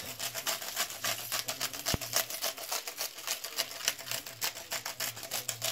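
Hand salt grinder being twisted, giving a rapid, uneven run of crunching clicks as it grinds.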